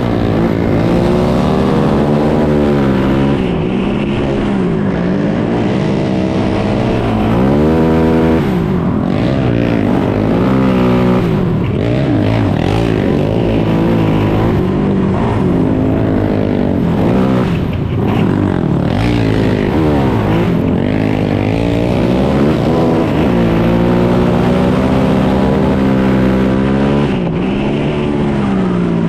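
A 450-class sport quad's single-cylinder four-stroke engine racing, heard on board, its pitch climbing as it speeds up and dropping back as it backs off, over and over lap after lap.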